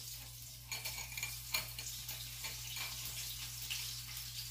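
Flour-coated cauliflower pieces frying in hot oil: a steady crackling sizzle with many fine pops.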